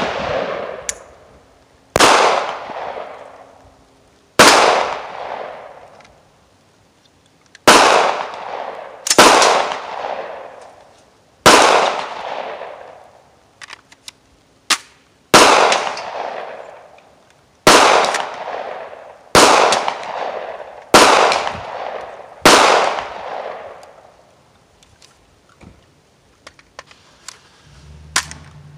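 5.56 AR-15 pistol (PSA Freedom, 10.5-inch barrel) firing about ten single shots at a slow, uneven pace, one every one and a half to three seconds, each a sharp crack with a long echoing tail. The shots stop a little over twenty seconds in, leaving only a few faint clicks.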